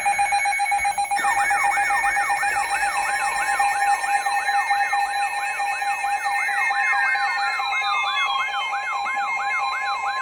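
Weather-radio emergency alert signal ahead of a severe thunderstorm warning: an electronic siren-like warble sweeping up and down about three times a second over steady tones. A falling glide comes about two-thirds through, and another steady tone joins near the end.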